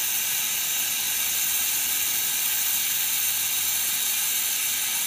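Steady hiss of an oxy-hydrogen gas welding torch flame, turned down to a soft, reduced-oxygen flame, held on a magnesium plate while the filler rod melts into the flux-covered weld puddle.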